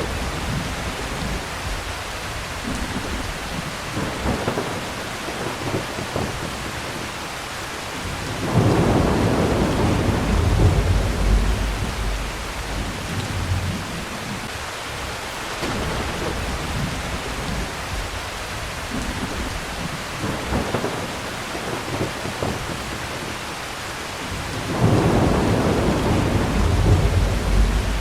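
Heavy rain falling steadily, with two loud low rolls of thunder lasting several seconds each: one about a third of the way in, the other near the end.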